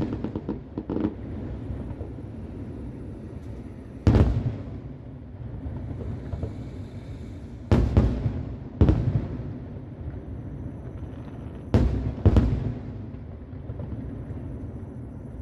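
Aerial fireworks heard from about a kilometre away: a series of sharp booms a few seconds apart, some in quick pairs, with a brief crackle near the start and a low rumbling echo between the bursts.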